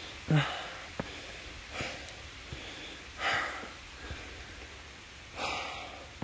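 Heavy breathing of a hiker climbing stairs: four short, loud exhales about every one and a half seconds, the first the loudest, with faint footsteps between them and a light patter of rain.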